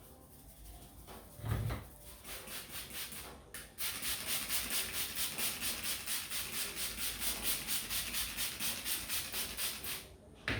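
Hands rubbing briskly over hair and scalp during a head massage: quick, even, hissing strokes about four or five a second, building up about two seconds in, growing strong about four seconds in and stopping shortly before the end. A dull thump comes about a second and a half in, and another right at the end.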